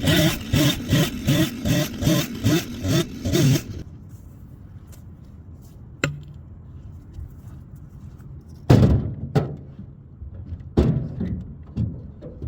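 An engine running with a pulsing beat about three times a second, which stops about three and a half seconds in. After it a sharp click, then several heavy thumps, as of cut firewood rounds being dropped.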